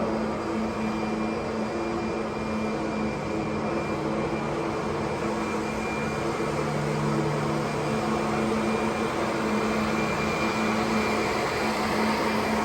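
Kirby Sentria II upright vacuum cleaner running steadily while vacuuming, a motor hum and airflow noise whose pitch wavers slightly now and then.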